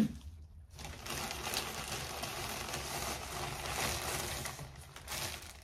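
Plastic packaging rustling and crinkling as it is handled and opened. The rustle starts about a second in and runs steadily for about four seconds.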